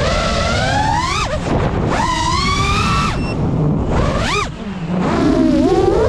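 FPV drone's brushless motors whining, the pitch climbing and then dropping sharply several times as the throttle is punched and cut through flips and dives. Wind buffets the microphone with a steady low rumble underneath.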